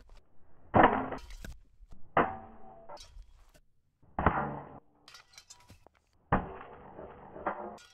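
Steel blade of a bladed flail swung on its chain and striking a rolled straw mat target again and again: five sharp hits about every one and a half to two seconds, each with a short ringing tail.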